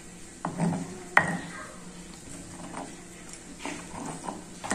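Stone pestle knocking and scraping in a volcanic-stone molcajete as it mashes tomatoes for salsa: two sharp knocks in the first second or so, then softer irregular grinding and taps.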